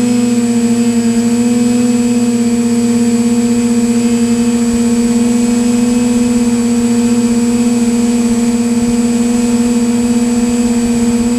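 Multirotor drone's motors and propellers humming steadily at one pitch, with a thin high whine above.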